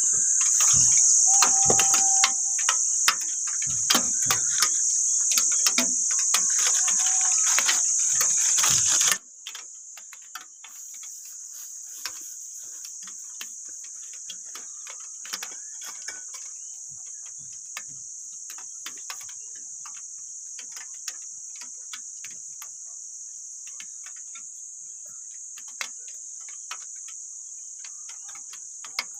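Insects chirring in a steady, high-pitched drone, with scattered clicks and rustles of handling close by. The drone drops suddenly in level about nine seconds in and carries on quieter.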